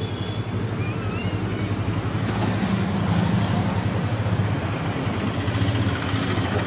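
Motorcycle engine running at low revs amid road traffic: a steady low hum under general street noise.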